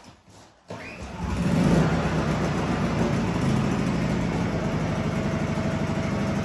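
A Champion 2200-watt generator's small four-stroke engine catches about a second in, as on a recoil pull, and quickly comes up to speed. It then settles into steady running.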